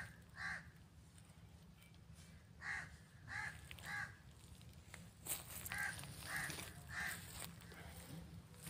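A crow cawing in short, harsh calls, mostly in runs of three about half a second apart, over a low steady background noise.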